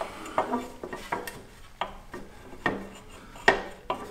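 Metal clinks and taps as parts and hand tools are handled while an exhaust header is taken off a Husqvarna FE350 dirt bike: about eight short, sharp knocks at uneven intervals.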